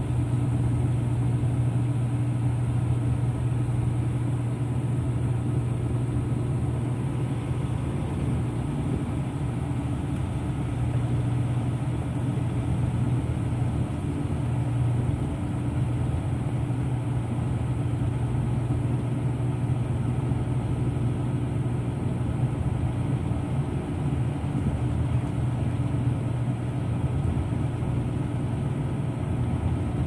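Top-load washing machine spinning a load of towels in its drum: a steady low motor hum with a few steady tones above it, unchanging throughout.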